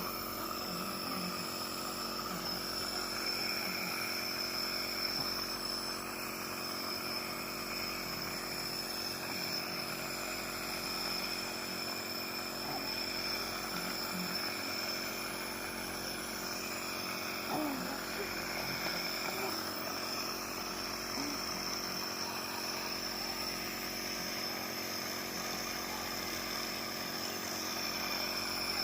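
Compressor nebulizer's motor running with a steady hum of many overtones while it nebulizes medicine for inhalation.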